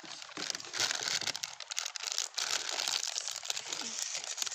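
Plastic snack packet crinkling as it is handled and turned in the hands: a continuous run of close-packed crackles from the wrapper.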